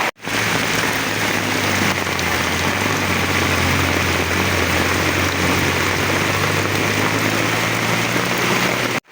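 Heavy rain pouring down in a steady hiss, with a steady low engine hum underneath through the middle.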